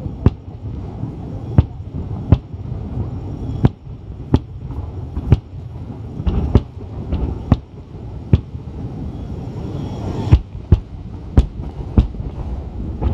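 Aerial firework shells bursting: more than a dozen sharp bangs at uneven spacing, roughly one a second, over a continuous low rumble.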